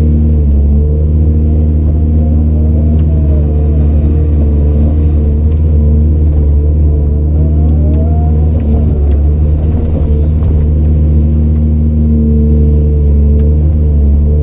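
Heavy diesel engine of an excavator running steadily with a loud low drone. A fainter whine rises and falls about three seconds in, and again past the middle.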